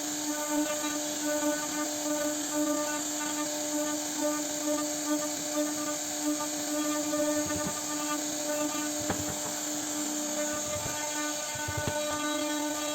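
CNC router spindle running with a steady whine and hiss while carving wood, with a few brief low knocks in the second half.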